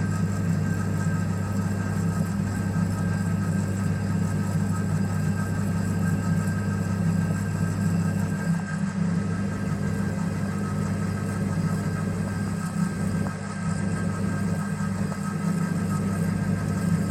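Colchester Master lathe running under power, its electric motor and drive giving a steady, even hum.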